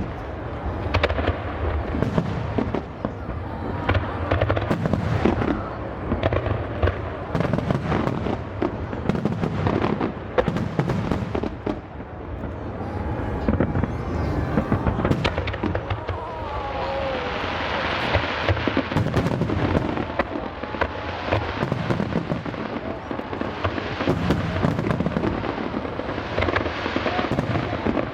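Fireworks display: aerial shells bursting one after another, sharp bangs and deep booms over a continuous low rumble, with a denser stretch of noise about two thirds of the way through.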